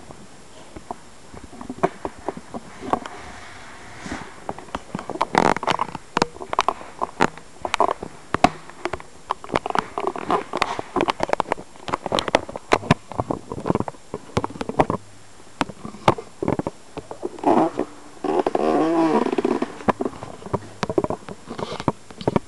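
Vacuum cleaner floor nozzle handled and scraped on carpet: many irregular clicks and knocks, with a buzzing, fluttering stretch a few seconds before the end.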